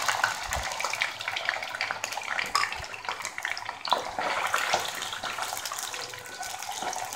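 Freshly added raw mutton liver sizzling in hot oil in a wok: a steady, wet-sounding sizzle full of small crackles. A spatula stirs through the pieces, with a knock about four seconds in.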